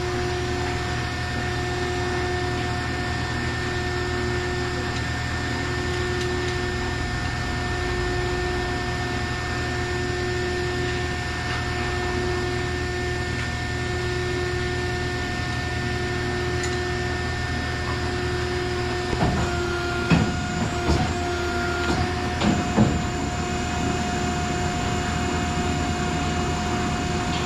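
Hydraulic four-roll plate bending machine humming steadily, with a higher tone that pulses on and off about every second and a half. About twenty seconds in, a short run of sharp metallic knocks and clanks as the steel is set into the rolls.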